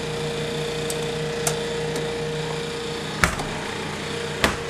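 Steady electrical hum of commercial refrigeration machinery running, with a few sharp knocks or clunks. The loudest knock comes about three seconds in and another near the end.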